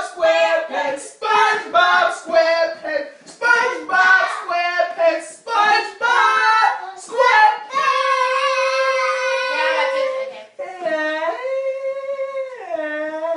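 A high-pitched voice singing without accompaniment: quick syllables at first, then from about eight seconds in long held notes that step up and down in pitch.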